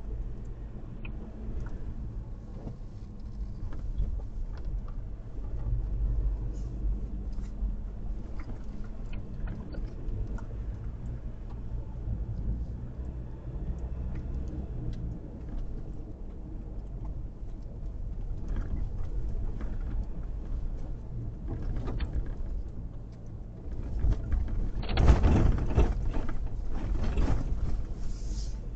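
A car on the move, with a steady low rumble of engine and road and scattered small rattles. About 25 seconds in, a louder rushing noise comes in and lasts a few seconds.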